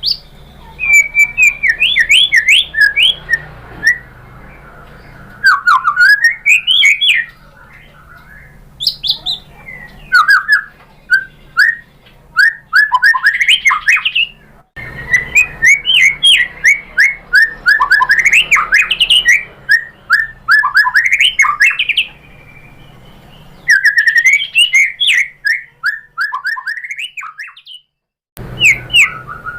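White-rumped shama singing full-voiced phrases of rapid, varied whistles and chirps that sweep up and down, with short pauses between phrases. This is its showy song run through its repertoire, the kind used to provoke other shamas into answering.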